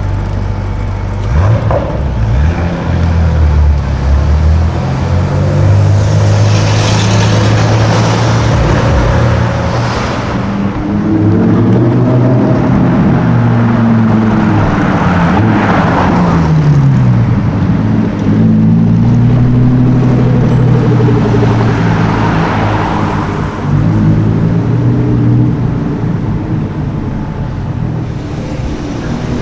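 Sports car engines running loud and being revved, the pitch climbing and falling again several times as the cars accelerate and pass.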